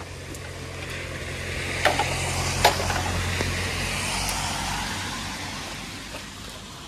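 A car passing on a wet road, its tyre hiss swelling and then fading away, over a steady low engine hum that stops partway through. Two sharp clicks come a little under a second apart near the middle.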